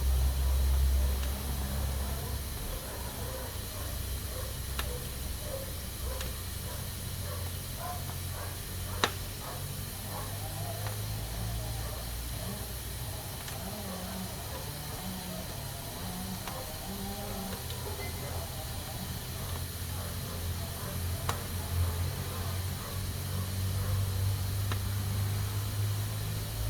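Pressure cooker hissing steadily as steam escapes from its valve, over a low rumble, with a sharp click about nine seconds in.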